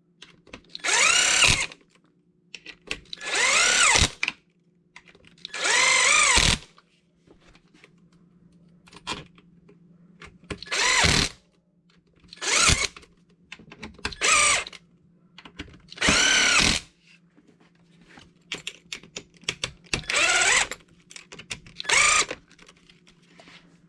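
Power driver spinning up in about ten short bursts, each a whine that rises and falls in pitch, as the basher bar's screws are run into the truck's plastic bulkheads.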